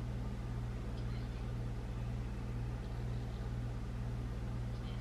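Steady low background hum, with nothing else heard.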